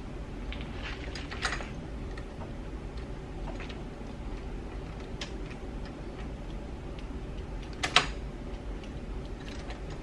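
A few light clicks and taps from hands working a 1980 C3 Corvette's power door lock switch and its wiring connector, with a sharper click about a second and a half in and the loudest near the end. No lock actuator runs: the locks are not responding.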